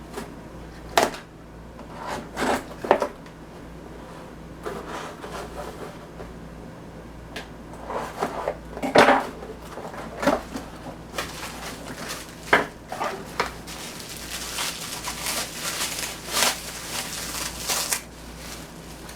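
A metal wrench being handled, with scattered clicks and clinks. A stretch of rustling runs from about eleven to eighteen seconds in.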